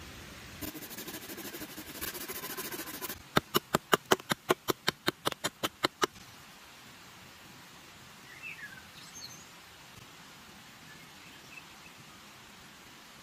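Hatchet chopping a green branch resting on a log: a quick, even run of sharp strikes, about five a second for some three seconds, after a couple of seconds of rasping, scraping wood-working noise. A bird chirps briefly later.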